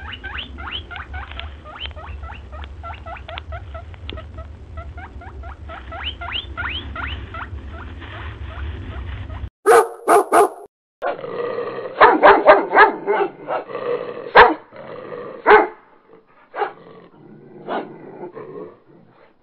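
A puppy yipping and barking: a quick pair of sharp yaps about ten seconds in, then a run of several more, thinning to a few quieter yips near the end. Before that, faint high chirps over a low steady hum.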